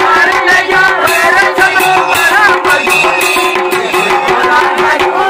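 Kumaoni folk band music: dhol and damau drums beating fast under a masakbeen (bagpipe) melody with a steady drone.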